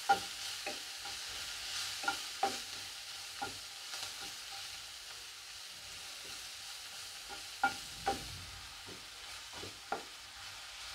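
Metal spatula stirring and scraping frying onion-tomato tadka in a non-stick kadai, with irregular clinks of the spatula striking the pan over a low, steady sizzle.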